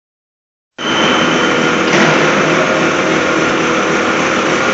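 H-beam end face milling machine running: steady machine noise with a high steady whine, starting abruptly just under a second in; the whine drops out about two seconds in while the rest carries on.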